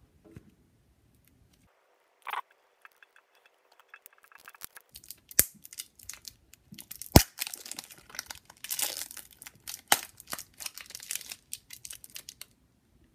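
Clear plastic shrink-wrap being torn and peeled off a deck of cards, crinkling and crackling in fits, with a few sharp snaps along the way.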